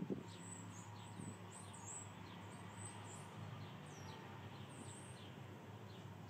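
Small birds chirping: a scattered run of short, high, falling calls over a faint steady low hum.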